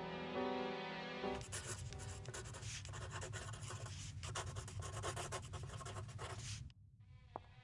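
Pencil scratching on paper in quick, continuous writing strokes, starting about a second in as a piano phrase dies away. It cuts off suddenly near the end.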